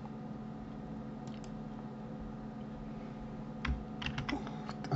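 Computer keyboard clicks: two faint ones about a second and a half in, then a quick cluster of key presses in the last second or so, over a steady low hum.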